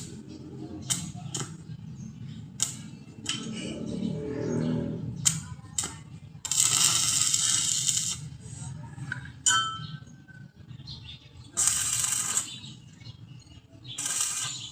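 Metal parts clinking and knocking during fabrication work, with three short bursts of rasping, hissing noise in between.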